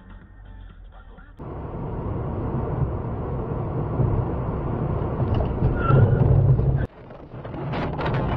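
Dash-cam audio from inside a moving car: steady road and wind noise that grows louder, breaks off suddenly about seven seconds in, then returns with a few sharp knocks near the end as another car cuts in close alongside.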